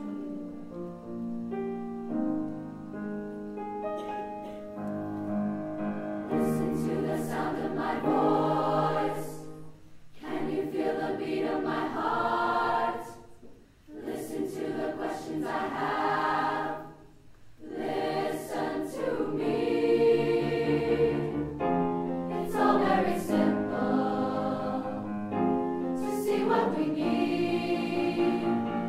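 Background music: a choir singing in phrases separated by short pauses, after a few seconds of held instrumental tones at the start.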